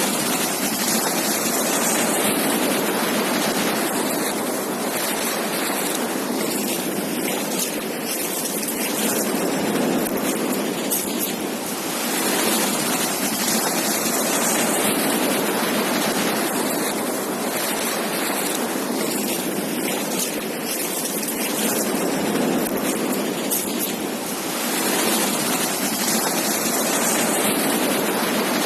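Ocean surf on a beach: waves breaking and washing in as a steady rush that swells and eases every few seconds.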